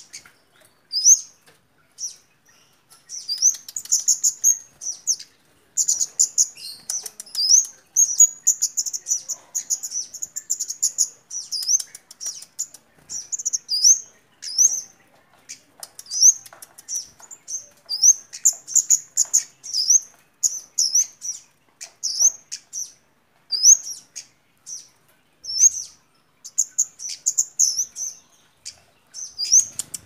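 Caged kemade songbird chirping rapidly in short, high twittering runs with quick up-and-down glides, broken by brief pauses, with scattered light clicks.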